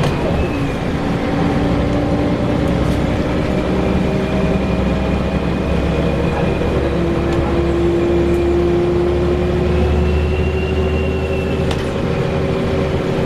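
A Scania L94UB single-deck bus running, with a steady low drone and loud high-pitched screeching tones that hold and slowly rise in pitch past the middle.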